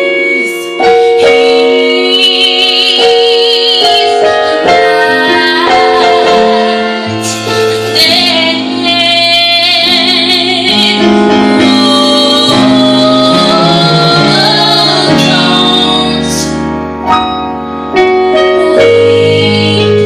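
Gospel vocal group singing in harmony, with women's voices leading on long held notes with vibrato. An electronic keyboard holds sustained chords underneath, and a low bass line comes in about seven seconds in.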